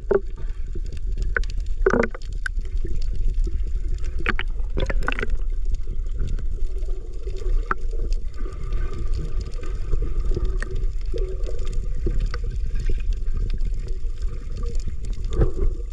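Muffled underwater sound picked up by a submerged camera: a steady low rumble of moving water with a few sharp clicks and knocks scattered through it.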